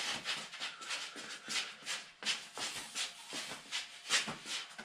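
Sneakers scuffing and stepping on a bare concrete floor, about three steps a second, as someone bounces in place during an exercise warm-up.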